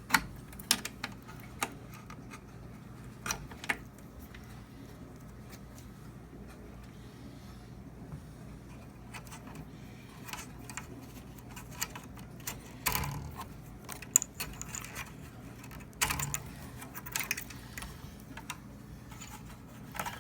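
Scattered sharp plastic clicks and knocks of wire-harness connectors being worked loose and unplugged from a TV's power supply board, over a faint steady hum.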